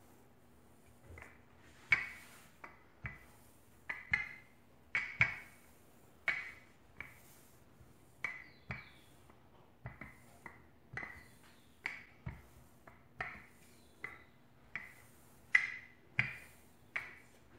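Wooden rolling pin worked back and forth over dough, giving irregular sharp wooden clacks and knocks, about one or two a second, each with a short ring.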